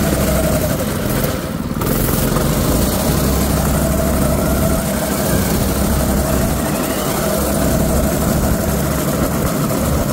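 Predator 6.5 hp single-cylinder four-stroke engine on a drift trike running steadily under way. It eases off briefly about a second and a half in.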